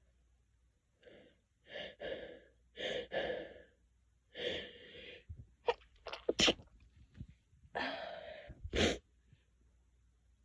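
A sneezing fit: several gasping in-breaths, then three quick sneezes about six seconds in, and after one more long in-breath a final sneeze near the end.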